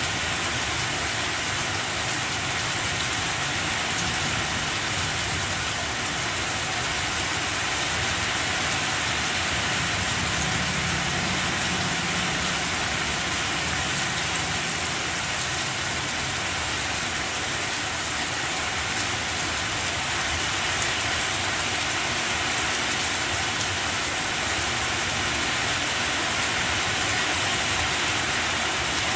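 Rain falling steadily on banana plants, a dense, even hiss that neither builds nor lets up.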